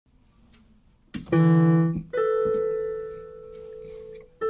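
Yamaha electronic keyboard played with a piano-like voice: a low note held briefly about a second in, then a higher note that rings on and slowly fades, and another note struck near the end.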